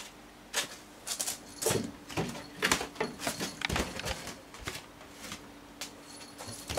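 A cat scrabbling and batting among shoes on the floor while hunting a cockroach: a string of irregular knocks, scuffs and rustles, over a faint steady hum.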